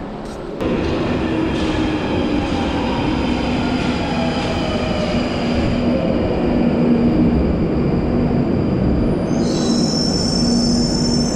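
London Underground Northern line 1995-stock tube train pulling into the platform: a steady loud running rumble with a low hum as it slows. About nine and a half seconds in, a high-pitched squeal of wheels and brakes sets in as it comes to a stop.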